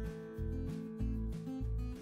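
Background music: plucked guitar notes over a steady bass beat, about two beats a second.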